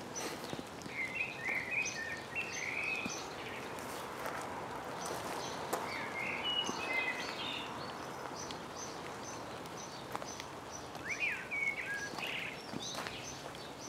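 Common blackbird singing: three short warbled phrases, about a second in, around six seconds and near the end, over a steady hiss of light rain.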